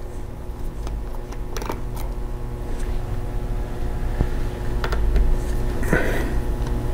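Small Phillips screws being backed out of a laptop's hard drive caddy with a #0 magnetic-tip screwdriver, giving scattered light clicks and ticks. A steady low hum runs under them.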